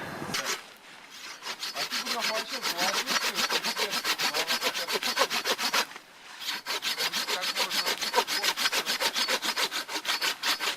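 Hand saw cutting through wood in quick, even strokes, pausing briefly about six seconds in and then carrying on.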